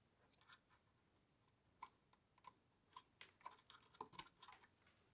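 Near silence with faint small clicks and rustles of a ribbon cable and its plastic connectors being handled and pushed onto a Commodore 64 board, clustered in the second half.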